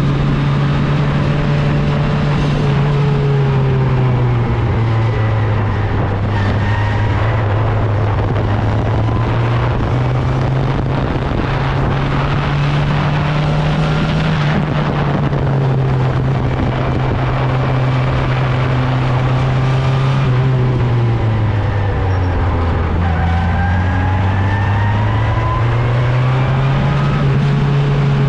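Open-wheel single-seater race car's engine running hard, heard from the car itself. The engine note drops in pitch twice, once around five seconds in and again a little past twenty seconds, as the car slows for corners, and climbs back each time as it accelerates, over a steady rushing noise.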